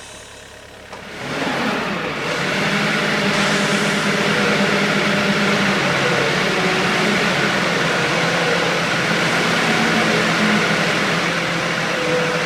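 Engine of a tyre handler running, swelling in about a second in and then holding at a steady level.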